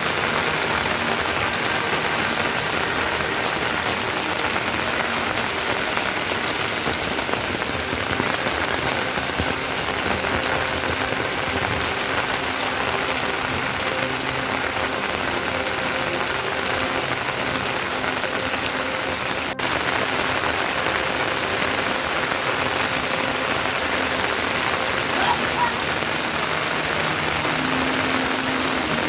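Steady rain falling on surfaces, a continuous dense hiss at an even level.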